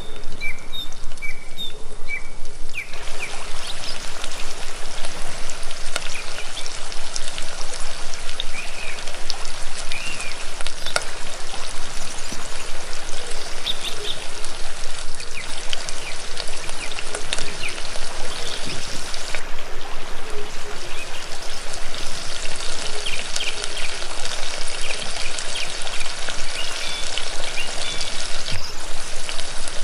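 Chopped onions sizzling and crackling in hot oil in a small metal pan, a steady hiss with many fine pops.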